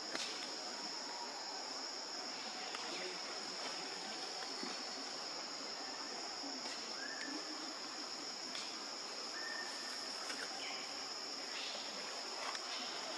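Steady, high-pitched chorus of insects, with a few faint brief chirps over it.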